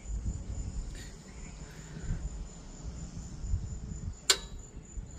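Low handling rumble with one sharp click about four seconds in, over a steady high chirping of crickets.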